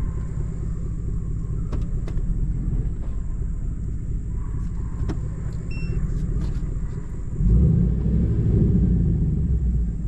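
A car or truck running with a steady low rumble of engine and road noise, growing louder for a couple of seconds near the end.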